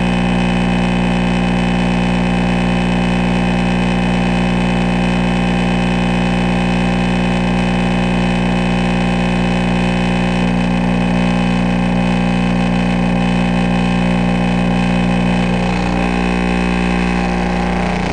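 Alpine T2 subwoofer fed straight from a wall outlet, giving a loud, steady low buzz of mains hum while its voice coil overheats and smokes. The buzz changes slightly near the end.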